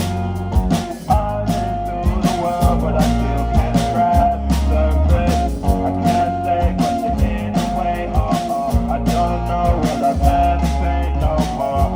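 Blues-rock band music: guitar over bass and drums with a steady beat.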